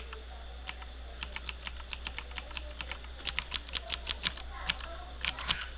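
Typing on a computer keyboard in quick irregular runs of sharp clicks, about four to six a second. Each keystroke sounds a mechanical-switch sample from the Mechvibes keyboard sound software being auditioned.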